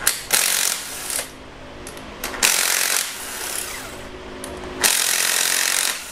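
A handheld power tool running in three short bursts, about a second in, around two and a half seconds and near five seconds, as 12 mm camshaft bearing cap bolts are spun out.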